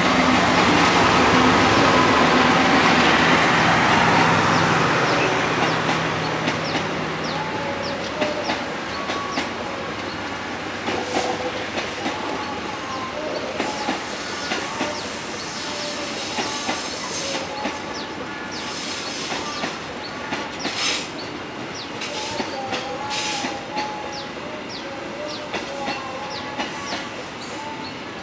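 Diesel locomotive passing close by with its engine loud for the first few seconds, then a long rake of passenger coaches rolling past. The wheels give a clickety-clack over the rail joints, with short squeals now and then.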